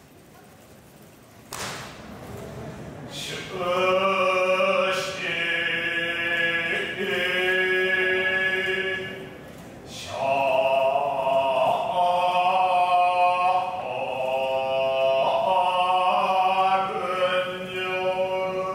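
Buddhist shōmyō chant: a monk's voice holding long, drawn-out notes, beginning about three seconds in and breaking off briefly about ten seconds in. A few sharp knocks land about one and a half, five and ten seconds in.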